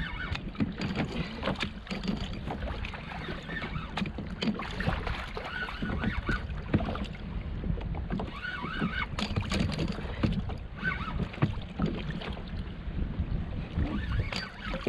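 Water lapping and sloshing against a fishing kayak's hull over a steady low rumble, with scattered small knocks and clicks.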